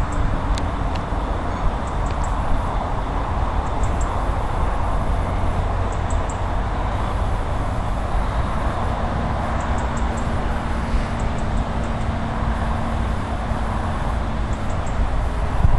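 LNER K4 steam locomotive 61994 The Great Marquess approaching from a distance with its train, heard as a steady rumble. A faint steady hum joins partway through, with a few faint high ticks now and then.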